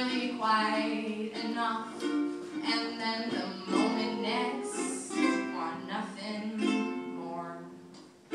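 Ukulele played with a woman singing along, the music dying away near the end.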